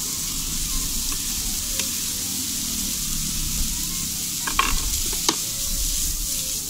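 Beef and mixed vegetables stir-frying in a hot pan, a steady sizzle. A few sharp clicks come about four and a half and five seconds in.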